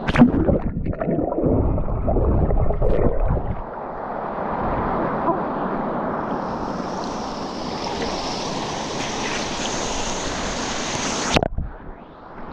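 Rushing, splashing water. It starts with a sharp hit and a few seconds of rough, rumbling noise, then settles into an even rush, and cuts off suddenly near the end.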